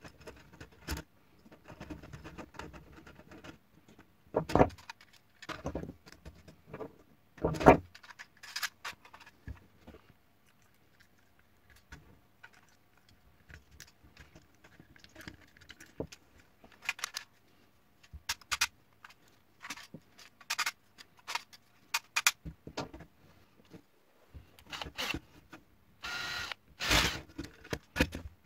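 Handling noise of a 3D-printed plastic pinball drop-target assembly being put together with hand tools on a wooden workbench: scattered small clicks, taps and rattles of plastic parts, springs and screws. Two louder knocks come about five and eight seconds in, and the clattering grows denser near the end.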